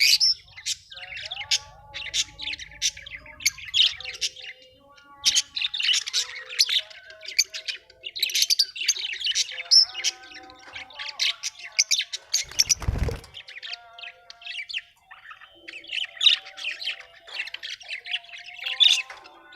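Lovebirds chirping and squawking in quick, high-pitched calls that overlap one another with hardly a pause.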